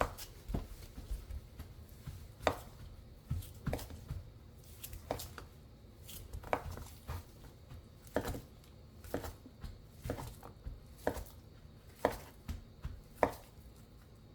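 Kitchen knife chopping food on a cutting board: separate sharp knocks at an unhurried, uneven pace, about one or two a second.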